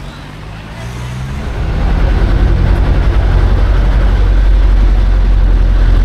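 Engine of an old bus with wooden bench seats, heard from inside while riding. Its note rises as it accelerates over the first second or so, then settles into a loud, steady low rumble.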